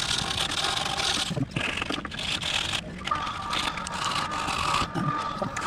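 A power sander working a wooden chainsaw carving: rasping sanding strokes with short breaks between them. From about three seconds in, the tool's motor whines steadily.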